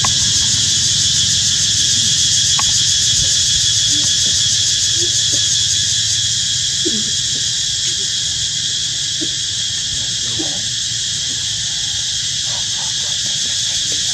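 Steady high-pitched insect chorus, a continuous buzz with a low hum beneath it and a few faint short chirps in the middle.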